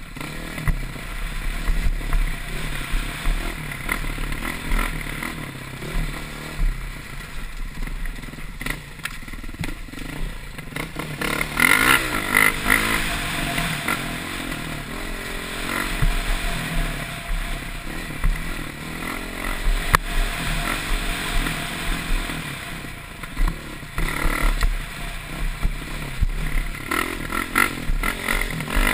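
Dirt bike engine revving up and down continuously as it is ridden hard over a rough trail, with louder surges of throttle about twelve seconds in and again near the end, heard from a helmet-mounted camera.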